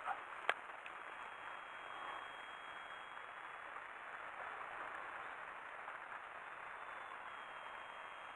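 Faint, steady whir of a small electric foam-board model aeroplane's motor and propeller flying at a distance, with a thin high whine that wavers slightly. A single sharp click comes about half a second in.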